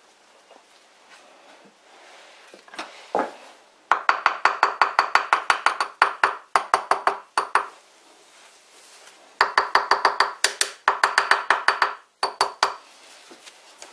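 Rapid metallic clicking with a ringing tone as a drill chuck's toothed sleeve is turned by hand on its arbor. It comes in two runs of about three seconds each, after a single knock.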